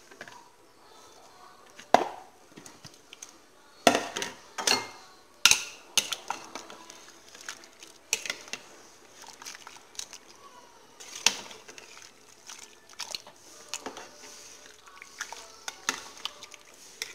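Spoon knocking and clinking against a pressure-cooker pot while black beans, bacon and smoked sausage are stirred, in irregular clicks with a few sharper knocks in the first half.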